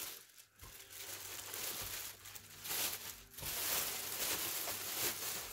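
Thin clear plastic bag crinkling and rustling as it is handled and pulled up off a subwoofer cabinet, the rustle coming and going.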